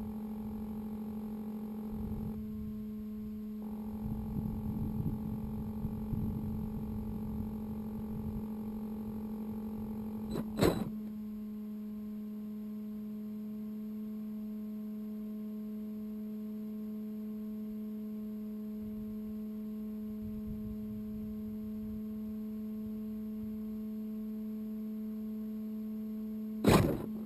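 Steady electrical hum with several overtones from a parked 1:10 FPV RC car's electronics, picked up by its onboard camera. A short knock about ten seconds in changes the pitch mix of the hum, and a brief loud burst comes near the end.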